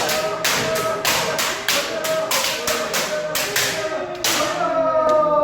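Bamboo shinai striking kendo armour in quick succession, about three sharp cracks a second, over long held kiai shouts.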